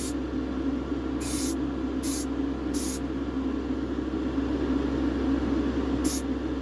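Grey aerosol primer sprayed from a rattle can in several short hissing bursts, over a steady low drone.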